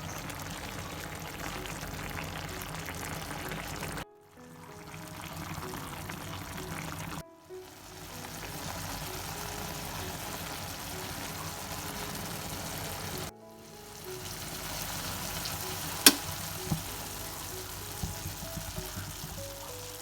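Food frying in a pan: a steady sizzling hiss under background music. The hiss cuts off sharply three times, and a single sharp knock about 16 seconds in is the loudest sound.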